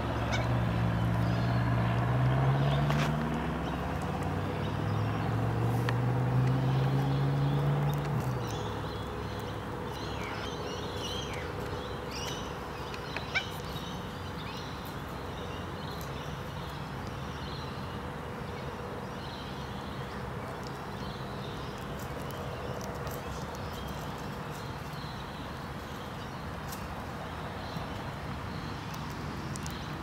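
A vehicle engine rising in pitch, easing off about four seconds in, then rising again before fading out about eight seconds in. After that comes a steady outdoor background with faint, scattered bird calls and one sharp click.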